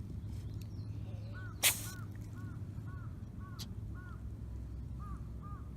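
A cat sneezing once, a short sharp burst about one and a half seconds in. Behind it a bird calls over and over, about two short calls a second.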